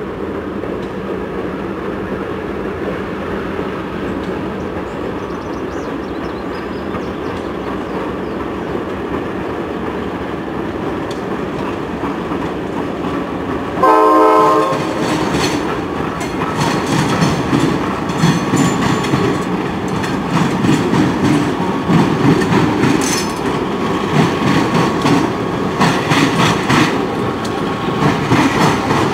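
EMD diesel freight locomotives (GP38-2s and a GP40-3) approaching with a steady engine rumble. About halfway through comes a short horn blast as the lead unit arrives. Then the wheels clatter rhythmically over the rail diamond as the locomotives and hopper cars pass.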